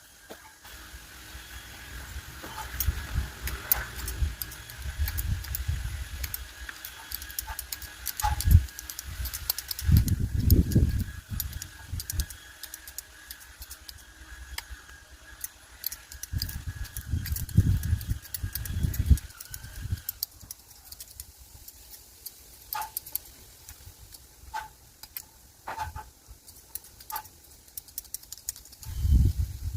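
Small sharp metallic clicks and snips from bonsai pruning shears at work, scattered irregularly, mixed with low bumps and rustles of hands handling the tree and the microphone.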